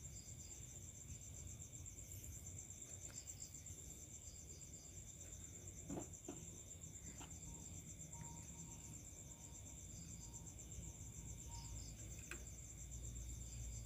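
Crickets chirping in a steady high trill, with a few faint clicks, one about six seconds in.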